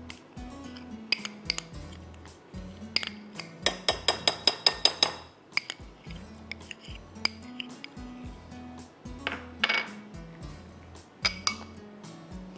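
A kitchen utensil clinks and taps against glass bowls as a coffee-and-cocoa paste is scraped into whipped cream. There are scattered single clinks, and a quick run of about ten ringing taps, roughly seven a second, a little past a third of the way in. Quiet background music with a steady bass line plays underneath.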